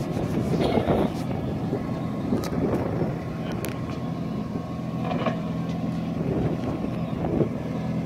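Willys Jeep engine running steadily to drive its rear-mounted backhoe, with a few sharp clicks as the backhoe works.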